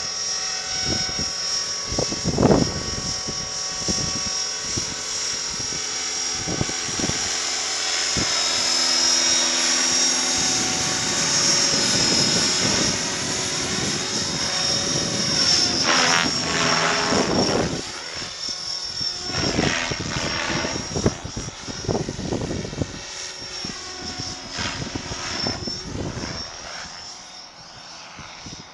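Blade 550 X electric radio-controlled helicopter in flight: a steady high whine from the motor and drivetrain with the rotor blades' whoosh. The sound wavers in pitch and loudness as it passes, then fades near the end as it flies off.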